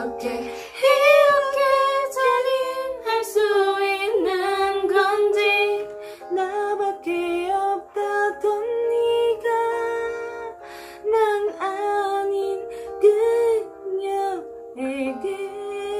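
A woman singing a slow ballad in Korean over an instrumental backing track, in phrases with short breaths between them.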